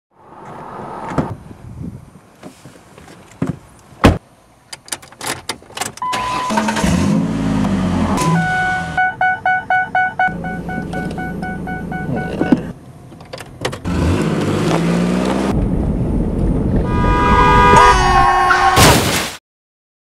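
A car's seat belt warning chime repeats rapidly for a few seconds in the middle, after a series of clicks and knocks. Near the end a loud pitched sound swells and cuts off suddenly.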